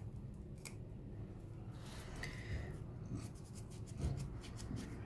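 Faint rubbing and scraping as a fresh lemon is handled and its hard green stem nub is worked off, with a few light clicks about three seconds in.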